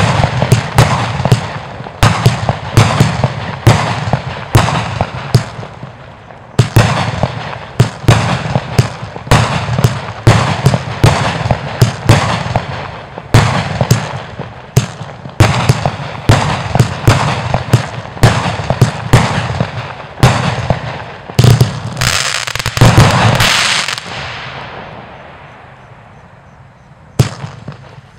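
Springmeister fireworks cake from the Geisha Meisterwerk collection firing a rapid series of shots, about two a second, with crackle and hiss between them. After a brief pause it resumes; a dense, loud volley near the three-quarter point fades out into crackle, and firing starts again near the end.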